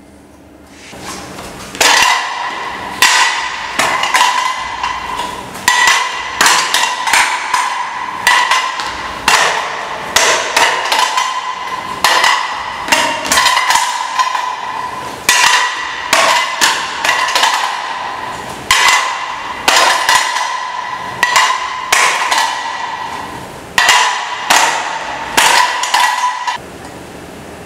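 A self-balancing scooter (hoverboard) frame stamped on over and over with a shoe while wedged against a step edge, in a strength test of the frame. The blows come about once a second, each a hard knock followed by a short ringing tone from the frame.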